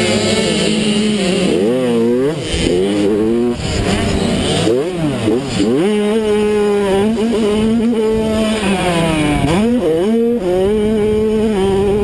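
Mini motocross bike engine heard on board, holding high revs. The revs drop and climb back up three times: about two seconds in, around five seconds in, and near ten seconds.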